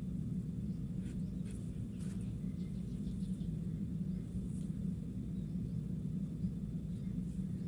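A steady low hum, with a few faint rustles of cloth being handled about one to two seconds in.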